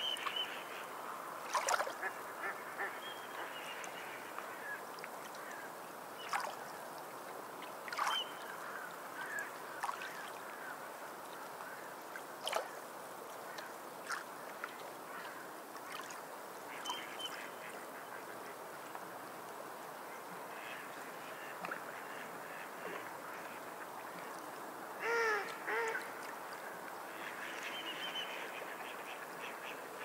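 Small waves washing over a pebble shore, a steady hiss, with scattered short calls from sea birds. About 25 seconds in comes a louder double call that bends in pitch.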